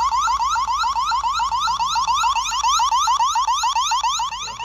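Built-in siren of a Roku Indoor Camera SE sounding: a loud electronic alarm of rapid rising whoops, several a second, repeating without a break.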